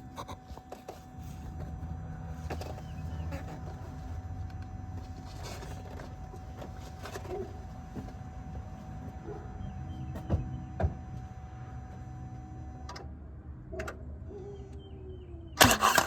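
2016 Hyundai Sonata's direct-injection engine being turned over by its starter, a steady low mechanical rumble with scattered sharp clicks, while cylinder 4 has its ignition coil and spark plug removed. A loud clatter near the end.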